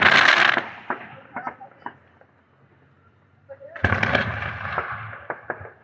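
Aerial fireworks going off: a loud burst fades into scattered sharp crackles and pops, then after a short lull a second firework bursts suddenly just under four seconds in and trails off in crackles.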